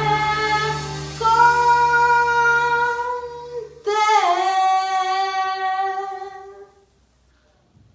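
A woman singing long held notes in an Italian Christmas song, over a soft accompaniment that stops about three seconds in. She moves up to a new note about a second in, then takes another note near four seconds in that dips and settles, and her voice fades out by about seven seconds.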